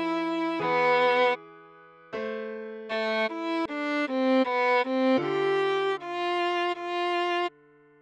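Viola playing a melody note by note over held lower notes. The line pauses briefly about a second and a half in and stops again near the end.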